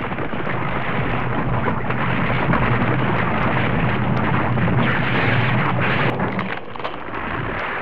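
Volcanic eruption sound effect with falling rocks: a loud, continuous rumble with scattered crackling.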